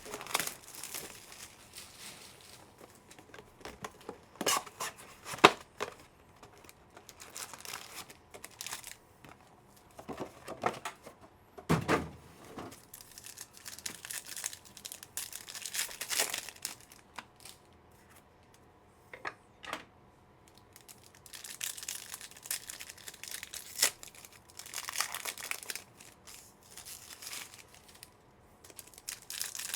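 Wrappers of Panini Phoenix football card packs and their hobby box being torn open and crinkled by hand, in irregular rustling bursts with sharp crackles.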